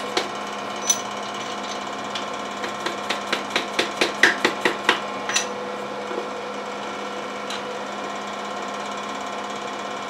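Quick light taps of a soft-faced mallet on the thrust-bearing main cap of a GM 2.4 L Quad 4 engine block, knocking the cap loose to lift it out. A couple of taps come first, then a fast run of about fifteen taps, then a few stray ones.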